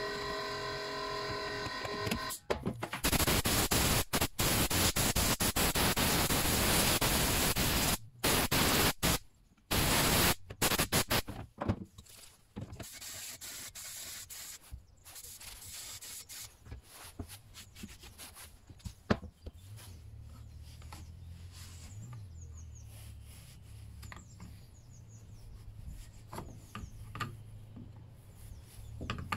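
A metal hand tool scraping and rubbing caked dirt off the side cover of a Stihl MS 231 C chainsaw. The scraping is loud and dense for several seconds, then comes in broken strokes, and then gives way to quieter scattered scrapes and clicks as the parts are handled.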